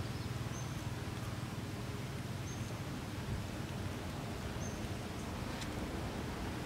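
Outdoor ambience: a steady low rumble with a short, high chirp repeating about every two seconds.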